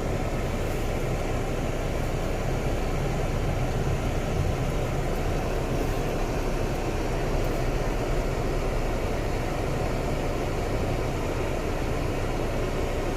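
Steady, even rushing noise inside a car with its engine running.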